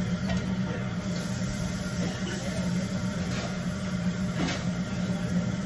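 A steady low mechanical hum, with a few faint light clicks over it.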